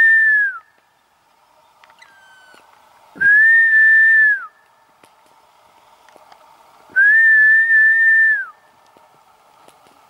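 Three long, level whistled notes, each just over a second and dropping in pitch at the end, spaced a few seconds apart, in the pattern of a black woodpecker's drawn-out 'kleee' call.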